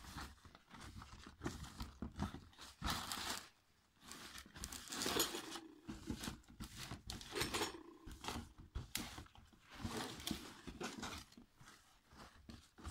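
White tissue paper crinkling and a paper gift bag rustling as the tissue is pulled out by hand, in uneven rustles with short pauses between.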